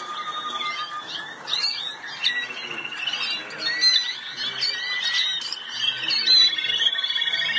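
Several Malinois Waterslager canaries singing at once, their songs overlapping in rapid rolling trills and long held notes.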